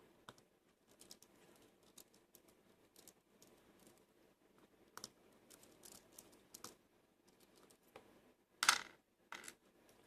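Faint, scattered small clicks and light scraping of a small lock and tools being handled while the lock is taken apart, with a louder brief scrape or rustle near the end.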